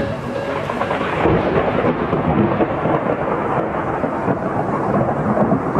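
Thunderstorm sound effect: continuous rumbling thunder with rain.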